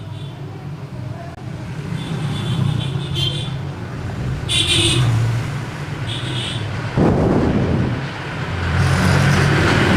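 Road traffic noise: engines running with a steady low rumble, two short high tones around the middle, and a sudden louder surge about seven seconds in.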